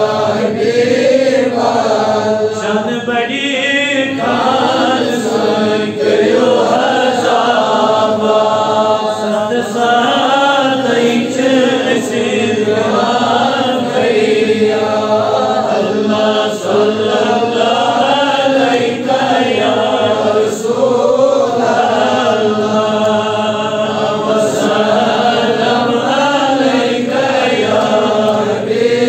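Men chanting a devotional Islamic recitation, the melody rising and falling in repeated phrases of about two seconds.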